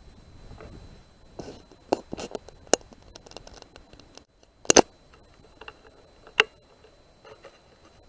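A scattered series of sharp clicks and knocks. The loudest is a quick double knock a little under five seconds in, and another strong click follows about a second and a half later.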